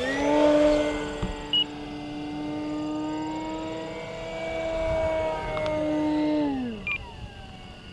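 Electric motor and propeller of an E-flite Carbon-Z Cub SS 2.1 m RC airplane whining in flight. The pitch rises right at the start, holds steady for several seconds, then drops and fades about seven seconds in.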